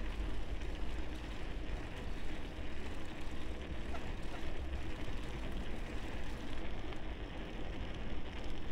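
Wind rumble and rolling road noise from a moving bicycle, picked up by an action camera's built-in microphone: a steady low rumble under an even hiss.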